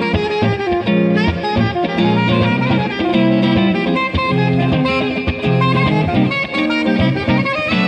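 Live instrumental jazzy groove: a saxophone playing a melody over an electric guitar, with a bass line and a steady beat underneath.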